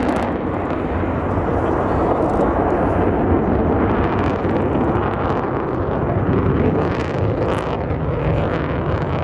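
Loud, steady jet rumble of an F-15J Eagle's twin Pratt & Whitney F100 turbofans during its display flight. The hiss in the upper range falls away at the start, leaving a deep continuous rumble.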